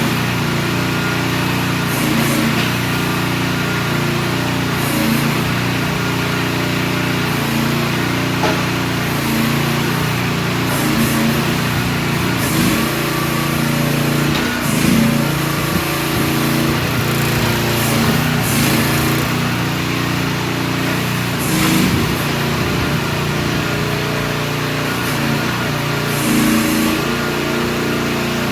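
2023 Visec VC13 mini excavator's 13.5 hp Briggs & Stratton engine running steadily, its pitch wavering briefly now and then.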